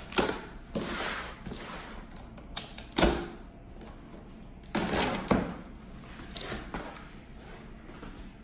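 Utility knife slitting packing tape along the seam of a cardboard box, then the cardboard flaps being pulled open: a run of scrapes, tape rips and sharp knocks, the loudest about three seconds in.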